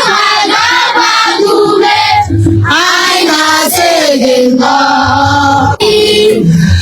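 Choir singing with instrumental backing and a recurring low bass beat.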